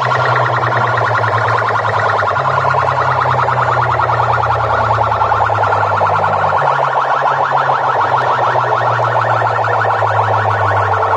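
Electronic siren-like warbling effect over deep sustained bass notes, blasted at high volume through a DJ sound-box stack of horn and cone loudspeakers. The warble repeats rapidly and steadily, and the bass shifts to a new note a few times.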